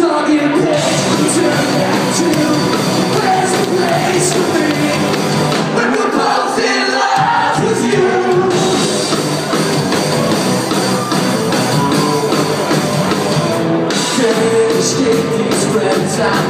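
Rock band playing live in a large hall, with a man singing over electric guitars, bass and drums. The low end thins briefly about seven seconds in, then the full band comes back in.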